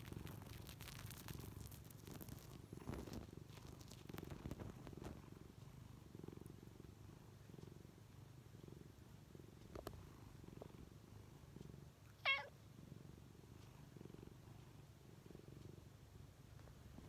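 Domestic cat purring softly and steadily, a low pulsing rumble, content while being massaged. About twelve seconds in comes one brief wavering high-pitched sound.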